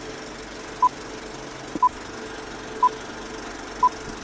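Film countdown leader: a short, high, pure beep once a second, four times, over a steady hiss of old-film noise with a single click.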